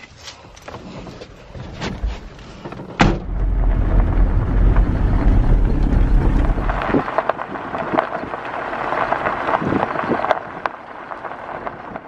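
A vehicle door shuts with a loud thump about three seconds in. The vehicle then drives off over a gravel farm track, heard from inside the cabin as a low rumble with the crunch and tick of gravel under the tyres.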